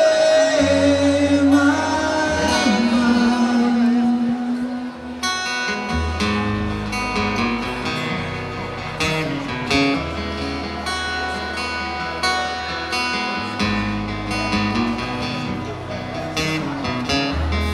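Live rock band playing, with electric guitars over a held bass line. A singer's voice glides through the first few seconds, and a steady beat fills in from about five seconds in.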